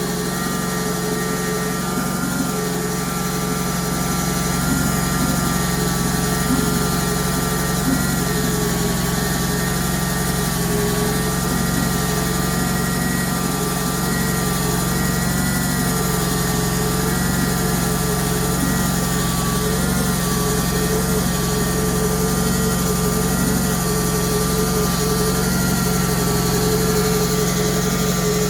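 Small gasoline engine of a sawmill running steadily while milling a red maple log into boards, with a faint, slightly wavering whine riding above the engine.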